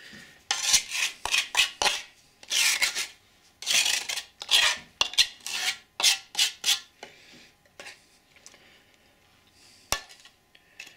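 Spatula scraping wet plaster in a mixing bowl: a run of quick rasping strokes that stops about seven seconds in, followed by a single sharp tap near the end.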